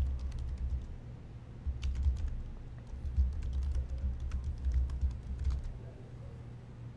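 Computer keyboard typing in short bursts of keystrokes as a username and then a password are keyed into a login form, over a low steady hum. The typing stops a little under six seconds in.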